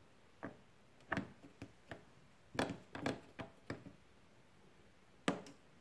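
Plastic clicks and knocks as the swing blade of an LG Dual Inverter air conditioner's indoor unit is seated onto its pivots and motor shaft: a scatter of short clicks, busiest about two and a half to four seconds in, with one sharp click near the end.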